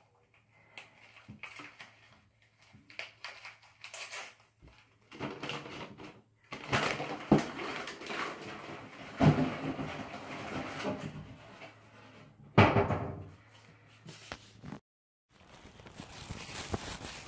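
Rustling and crinkling of gift-wrapping paper as wrapped presents are handled, with a few sharp thumps of boxes knocked or set down on a countertop. It starts with light clicks and gets much louder about six seconds in.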